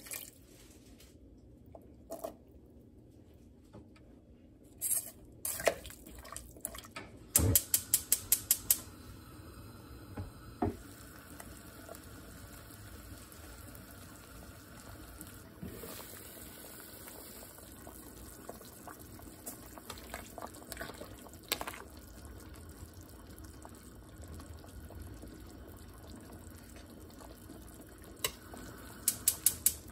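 Water poured briefly into a stainless steel stockpot of radish, kelp and onion, then the broth simmering with a steady bubbling hiss. The loudest sounds are two runs of quick, sharp metal taps of a kitchen utensil knocked against the pot rim: about eight about a quarter of the way in, and a few more near the end.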